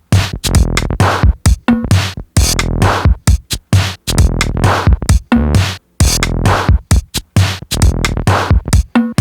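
Background music: an electronic track with a drum-machine beat, chopped into short stop-start hits with brief gaps between them.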